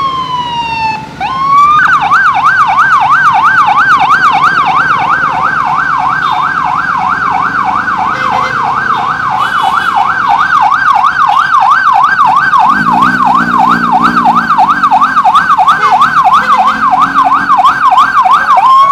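Police escort siren: a slow wail dips and rises about a second in, then switches to a fast yelp, about two and a half sweeps a second, and turns back into a rising wail near the end. A lower-pitched tone sounds under it for about a second and a half, about two-thirds of the way through.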